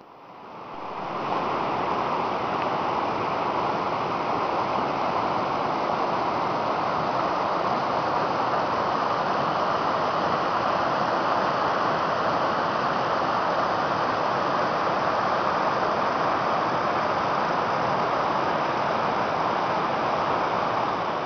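River Avon rushing and splashing in white water over a weir and rocks, a steady loud rush that fades in over the first two seconds.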